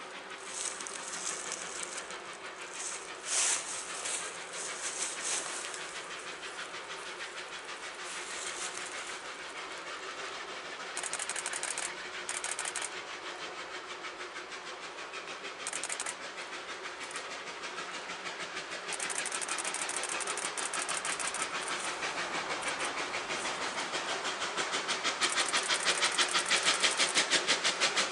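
Narrow-gauge NA-class 2-6-2T steam locomotive approaching, its exhaust beats getting louder and settling into an even chuff of about four beats a second near the end.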